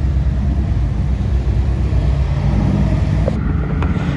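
Steady low rumble of car engines and road traffic.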